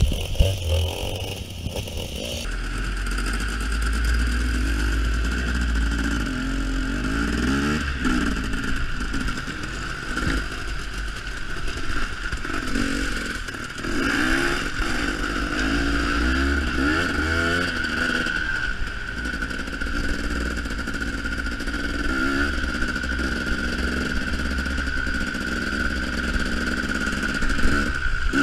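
KTM enduro motorcycle engine running on a rough dirt trail, its revs rising and falling again and again as the throttle is worked.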